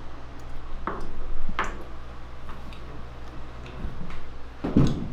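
A few sharp knocks and clicks, three of them louder, the last near the end, over a steady low hum.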